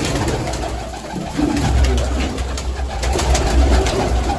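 Domestic pigeons cooing in a loft, several low, rolling coos overlapping, over a low background rumble.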